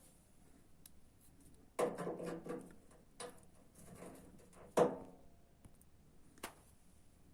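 Hands working on a washing machine under repair: a quick run of clattering clicks about two seconds in, a louder knock with a short ring near the middle, and a single sharp click near the end.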